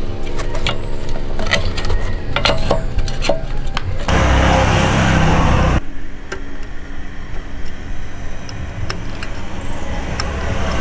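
Sharp metal clicks and taps of hand tools working on a moped carburetor, over the steady hum of an engine running in the background. In the middle, about two seconds of rough noise cover the hum, and the clicks thin out afterwards.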